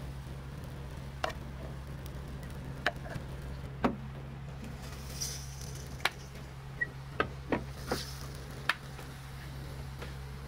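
Steady low electrical hum from a waffle-iron station, with about ten scattered sharp clicks and taps of kitchen work.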